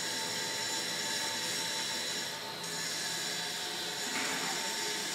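Twin-screw extruder snack food production line running: a steady mechanical hum and hiss with several constant whining tones.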